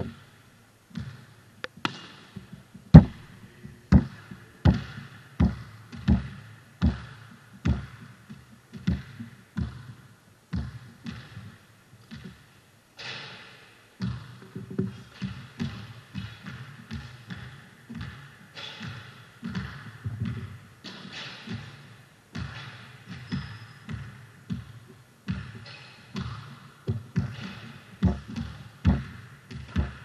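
Basketballs bouncing on a court floor. For the first ten seconds the dribbles come evenly, about one to two a second, and after that the bounces become denser and overlap.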